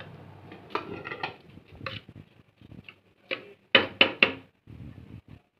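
Slotted metal spoon clinking and scraping against a metal cooking pot of sugar-covered rice, with scattered clicks and three loud knocks in quick succession a little under four seconds in.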